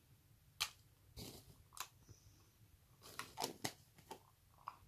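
Small plastic clicks from a bait pot and its lid being handled and opened by hand: a few separate clicks, then a quicker run of them over the last two seconds.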